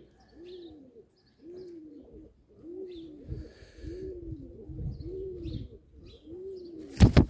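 Young male domestic pigeon cooing: a string of about eight low coos that rise and fall in pitch. Near the end comes a loud, brief flurry of the pigeon flapping its wings.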